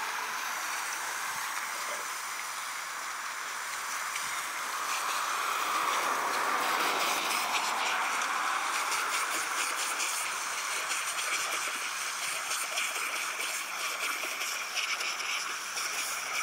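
Water running from a garden hose onto a wet gravel driveway, with dogs lapping and biting at the stream: a steady rushing that swells for a few seconds around the middle, with a fine splashy crackle in the second half.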